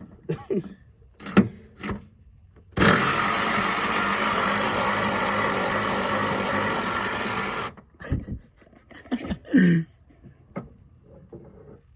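A power tool runs steadily for about five seconds, starting about three seconds in and cutting off sharply, with scattered clicks and knocks of handling tools and parts before and after.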